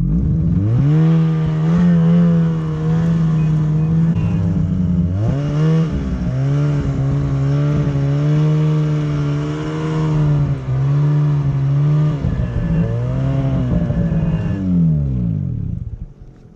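Two-stroke mountain snowmobile engine running hard under throttle in deep powder, its pitch climbing quickly at the start, holding high with a few short dips as the throttle eases, then winding down near the end.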